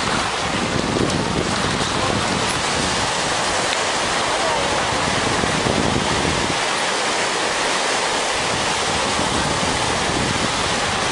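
Steady rush of surf breaking in the shallows, with wind noise on the microphone.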